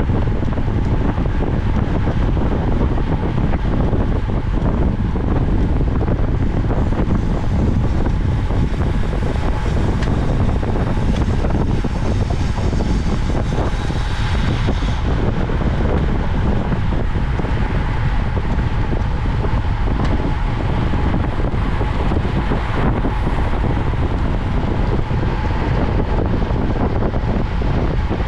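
Steady wind rush buffeting the microphone of a camera riding on a racing bicycle at speed.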